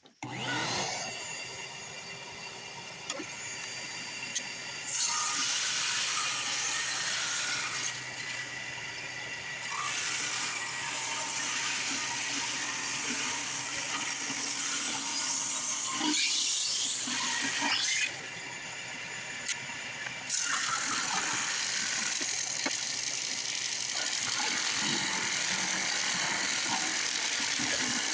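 Ryobi drum sander spinning up, its pitch rising, then running steadily with a shop vac's hiss as a maple board is fed through and sanded; the noise grows louder about five seconds in and dips briefly twice.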